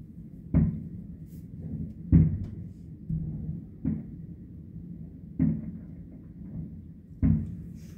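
Distant aerial firework shells bursting: five dull booms, about one and a half to two seconds apart, each trailing off in a short echo.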